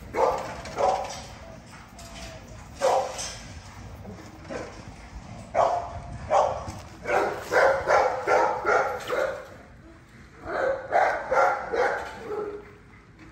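American bully dogs barking in short single barks, then in quicker runs of barks about seven seconds in and again near the end.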